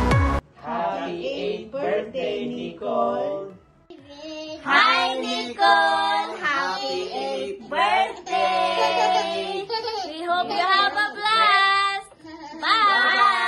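A few voices singing together, a child's voice among them, with short breaks about four seconds in and again near the end.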